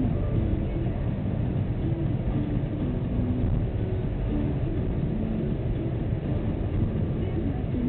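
Steady low rumble of engine and tyre noise inside a moving car's cabin, picked up by its dashcam.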